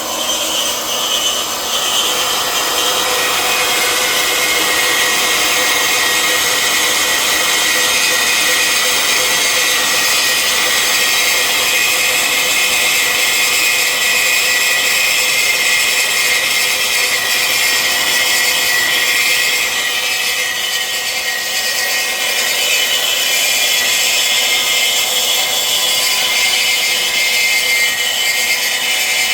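Makita band saw cutting through square steel pipe under its automatic feed: a steady, continuous metal-sawing noise with a high, even tone in it and no pauses.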